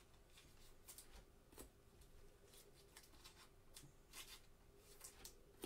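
Faint, scattered rustling and crinkling of thin plastic card sleeves as trading cards are slid into them by gloved hands.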